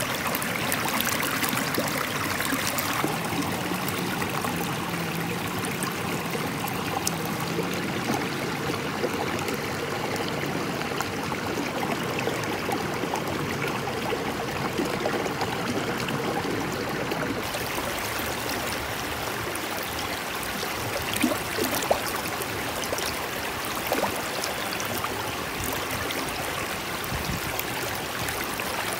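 A small shallow stream rushing and burbling steadily around concrete blocks. A few brief sharp clicks stand out about two-thirds of the way in.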